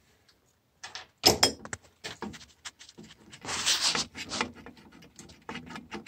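Screwdriver and sheet-metal control box of a water feeder being handled: scattered light metallic clicks and knocks as screws are worked, with a short rustling scrape about halfway through.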